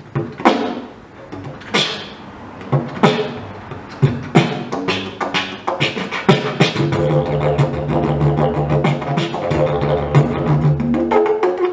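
Horizonde didgeridoo in D being played: for the first half, sharp percussive vocal and tongue accents with short gaps between them, then a continuous low drone with rhythmic pulsing. The drone dips briefly just before the end.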